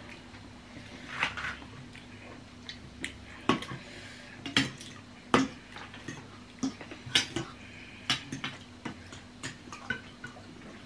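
Forks and spoons clinking and scraping against bowls as two people eat noodle soup: many short, sharp clinks at irregular intervals.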